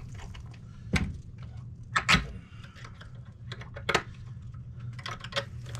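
A few sharp clicks and knocks from gloved hands working the fence wire and netting where the fence meets the house wall, over a steady low hum. One click comes about a second in, two close together about two seconds in, and one near four seconds.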